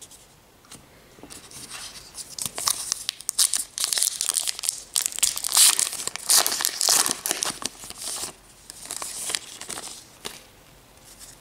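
A trading-card pack wrapper being torn open by hand and crinkled: a run of crackly tearing and rustling that builds about a second in, is loudest in the middle, and dies away near the end.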